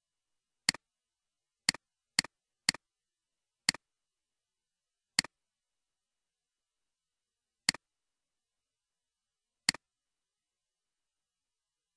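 Computer mouse button clicks: eight sharp clicks, each a quick press-and-release pair, coming irregularly, three close together in the first three seconds and then further apart, with dead silence between.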